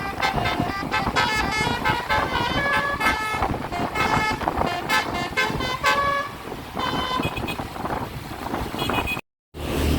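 Bus telolet basuri horn playing a quick melody of short notes that change pitch rapidly, one after another. The sound cuts out abruptly for a moment near the end.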